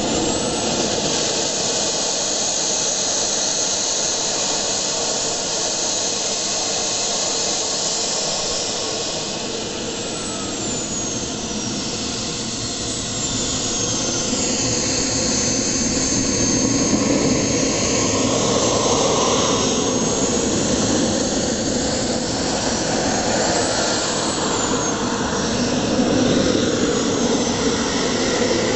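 Miniature gas turbines of large-scale radio-controlled L-39 Albatros jet models running with a steady loud whine, the pitch gliding up and down several times as the throttle is worked, somewhat louder in the second half.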